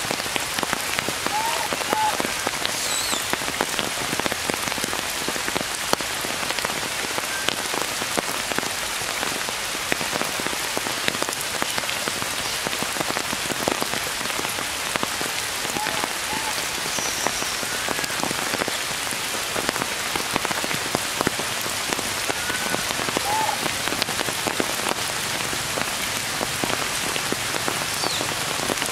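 Steady rain falling on tree leaves, with many separate drops striking close by, and a few faint short chirps now and then.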